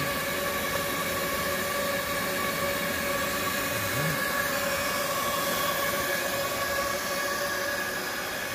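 Hot-air seam taping machine running: a steady airy hiss from its hot-air and vacuum system, with a constant whine of several tones.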